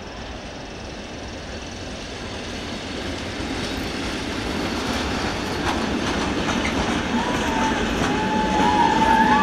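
Passenger train behind an electric locomotive rolling past over station pointwork, growing steadily louder as it nears, with wheels clattering over rail joints and switches. Thin wheel squeals come in about two-thirds of the way through.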